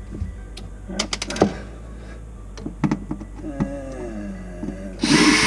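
Several light clicks and knocks of tools and fittings being handled, then near the end a cordless drill runs in one short burst with a whine.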